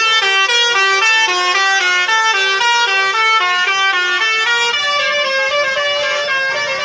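Bus telolet horn, a set of musical air horns on a bus, playing a quick tune of short notes that step up and down in pitch, about three to four notes a second.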